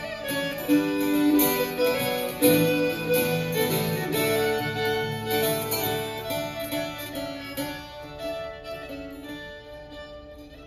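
Fiddle and acoustic guitar playing a Swedish folk tune together, the melody on sustained bowed notes over plucked accompaniment. About halfway through the music grows steadily quieter as the tune winds down to its close.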